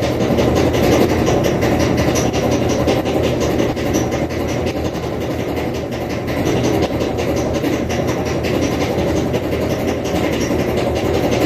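Kenmore Elite clothes dryer running, its drum rumbling with a fast, continuous knocking clatter: the sign of worn-out drum rollers.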